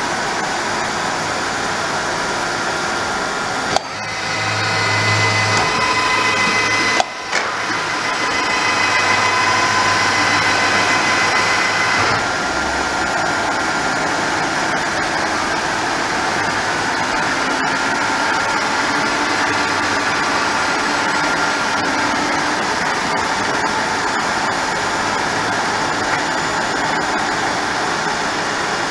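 Deckel FP 42 universal tool milling machine running: a steady whirring noise with gear whine. Two sharp clicks come about four and seven seconds in, and the whine changes pitch about twelve seconds in.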